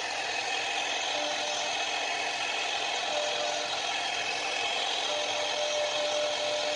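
CNC router spindle running steadily while its small end mill cuts flower-shaped outline grooves into a wooden board: an even, high hiss of cutting, with a faint steady tone that comes and goes.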